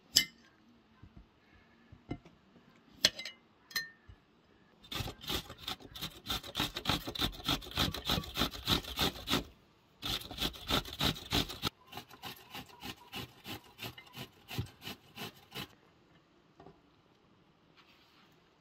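A knife clicks once against a ceramic plate, then a cucumber is grated on a stainless-steel box grater: quick, even rasping strokes, about four a second, in three runs broken by short pauses.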